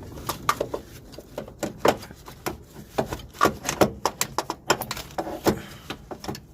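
Irregular metal knocks and clunks as a starter motor is worked and bumped through a tight gap among engine parts, several sharp hits a second, unevenly spaced.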